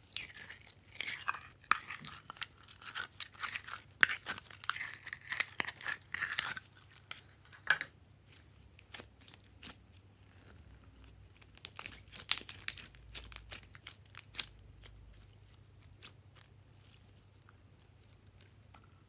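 Pink glitter slime being squeezed from its tub and kneaded by hand, giving sticky crackling and popping clicks. The crackling is densest for the first six seconds and again about twelve seconds in, with sparser pops in between.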